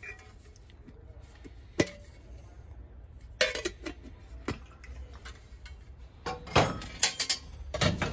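Brass kitchen vessels being handled: a single sharp metallic click, then short runs of clinks and knocks as the lidded brass container's lid and wire handle move and brass pots are shifted on the shelf, busiest near the end.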